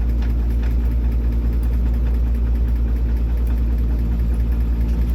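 An engine idling steadily with a low, even throb while fuel is being pumped into a tank.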